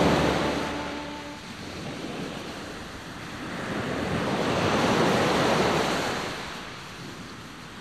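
Sea waves washing in, swelling slowly to a peak about halfway through and then ebbing away.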